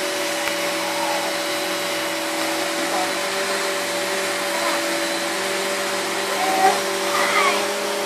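Vacuum cleaner running steadily with a constant hum, its pitch stepping slightly up and down a few times.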